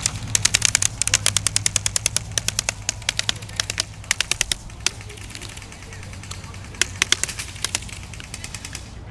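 Airsoft guns firing in rapid bursts: a fast string of sharp clicks for about five seconds, then a few scattered shots near the end.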